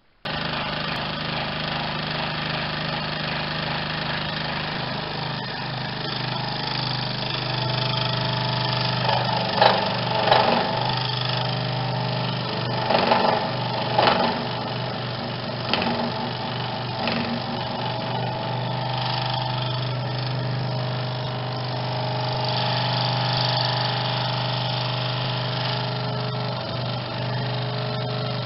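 Scroll saw running and cutting through a 55 mm thick block of Douglas fir: a steady motor hum with the blade's rapid chatter, getting louder in spells for several seconds around the middle as the blade bites harder into the wood.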